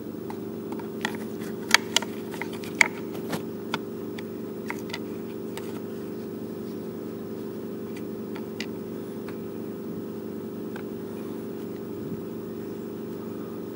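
A metal pick and new starter cord working against the plastic recoil starter housing and pulley of a Stihl FS56RC trimmer, giving a cluster of sharp clicks and ticks in the first few seconds, then a few scattered ones. These sit over a steady machine hum.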